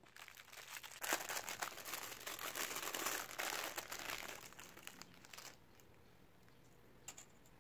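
Thin clear plastic bag crinkling as hands handle it and take small sewing accessories out of it. The crinkling stops about five and a half seconds in.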